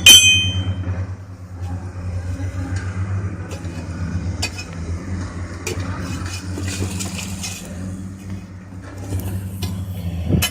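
A heavy machine's engine running steadily, with a sharp, ringing metallic clink at the start and a few lighter knocks and scrapes of metal on rock.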